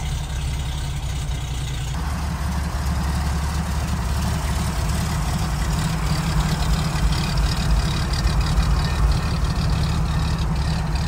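Toyota FJ40 Land Cruiser's inline-six petrol engine idling steadily while it warms up just after a choked cold start. It grows a little louder and fuller about two seconds in.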